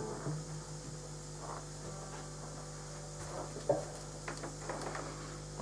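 Steady electrical hum from the guitar amplifier after the playing has stopped, with a few faint knocks and clicks as the guitar is handled, the clearest knock about three and a half seconds in.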